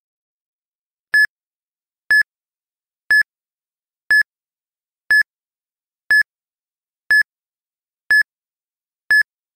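Countdown timer beeping: nine short, high electronic beeps, one a second, with silence in between, as the timer counts down.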